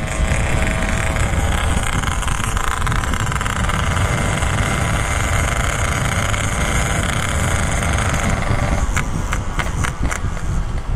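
Motorcycle running under way, its engine mixed with loud, steady wind and road noise at the rider's camera. A run of sharp clicks comes in over the last couple of seconds.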